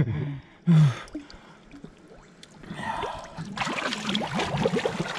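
A short vocal gasp or grunt about a second in, then, from about three seconds in, river water splashing and sloshing steadily with many small sharp splashes.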